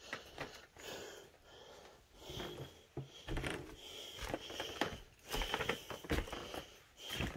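Footsteps on a floor strewn with debris: irregular crunches and scuffs of broken panelling and paper underfoot.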